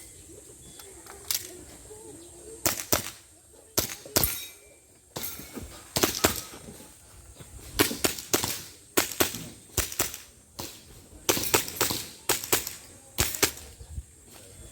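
Airsoft pistol shots during a timed shooting stage: about twenty sharp cracks, mostly fired in quick pairs with short pauses between strings.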